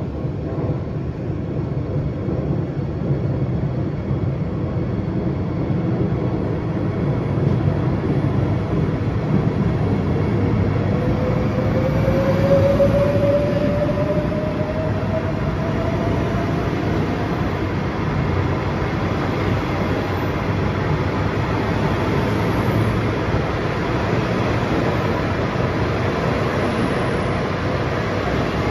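SBB Bombardier double-deck electric train running in along an underground station platform: a steady rumble of wheels and running gear, echoing in the enclosed station. About ten seconds in, a whine rises in pitch for several seconds.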